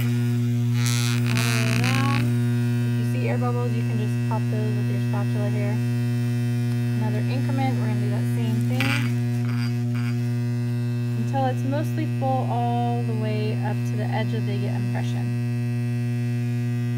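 Dental lab vibrator running with a steady low buzz, shaking freshly poured dental stone in an alginate impression so that air bubbles rise out of it.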